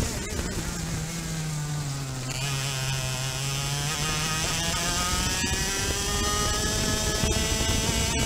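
Vortex VLR 100cc two-stroke kart engine heard from on board: it drops from high revs as the driver lifts and brakes into a corner, runs low for a couple of seconds, then climbs steadily back up under full acceleration.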